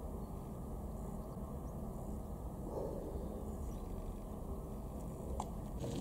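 Steady low rumbling background noise with no clear birdsong, and a single short click about five seconds in.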